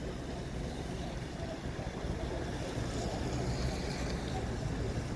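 City street traffic ambience: a steady low rumble of passing vehicles, swelling slightly with a hiss about two seconds in as a vehicle goes by.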